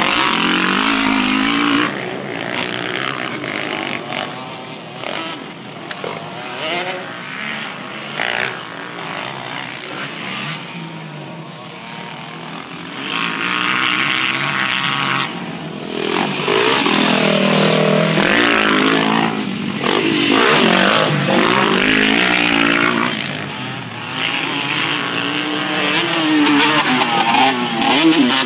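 Motocross dirt bike engines revving up and down as the riders go round the track, the pitch rising and falling with each throttle change. It is loudest when a bike passes close, at the start, through the middle of the back half and again near the end.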